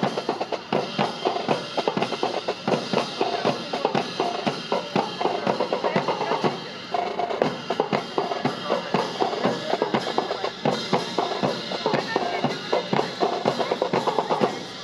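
Drum-led marching music: rapid snare and bass drum strikes over a band, cutting off suddenly near the end.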